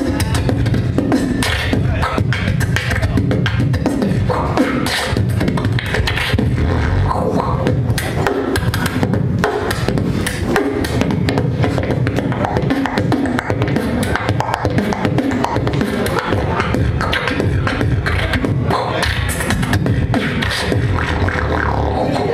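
Solo human beatboxing into a microphone: a fast run of mouth-made drum hits and clicks over a heavy, deep bass line, kept up without a break.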